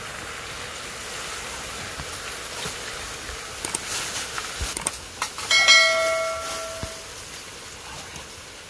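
A bright bell-like ding rings out about five and a half seconds in and fades away over a second or so, the notification-bell chime of a subscribe-button animation. A few sharp clicks come just before it, over a steady hiss.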